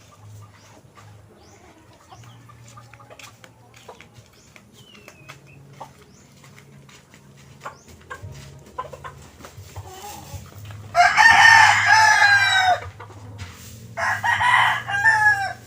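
Rooster crowing twice, a long loud crow about eleven seconds in and a second one near the end that drops in pitch as it finishes. A faint low hum and scattered light knocks lie underneath.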